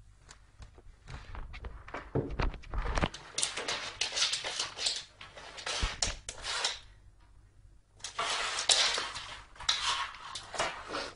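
Cardboard box scraping, rustling and bumping on a wooden floor as a cat paws at it and shoves it around. The sound comes in uneven scratchy bursts with knocks, and there are heavier thumps about two to three seconds in.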